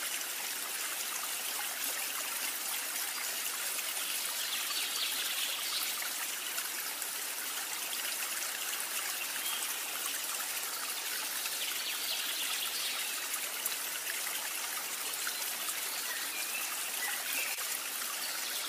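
Steady trickling of running water, like a small stream, even and unbroken throughout.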